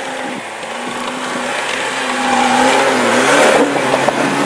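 Lada Niva's engine revving under load as the car pushes through deep snow, the revs and loudness climbing about two seconds in.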